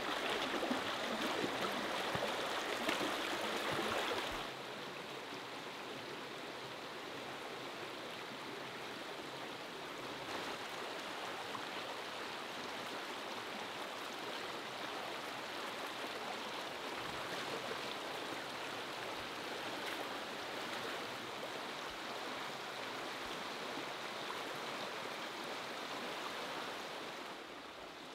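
Shallow stream running over rocks, louder and closer for the first four seconds or so, then a steady, softer rush of water that drops a little near the end.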